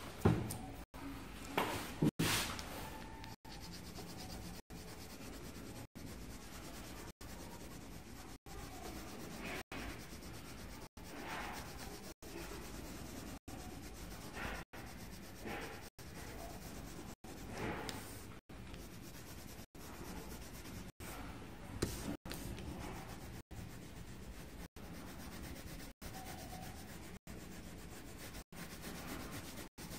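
Coloured pencil shading on paper: a steady scratchy rubbing of the lead back and forth across the card, with a few louder strokes in the first couple of seconds.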